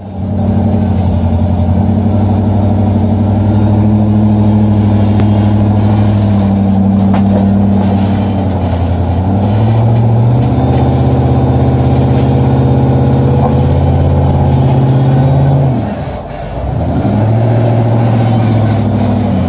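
Four-seat rock buggy's engine running under load as it crawls up over boulders, held at a steady pitch, stepping up a little about halfway through. Near the end the engine dips briefly, then picks up again.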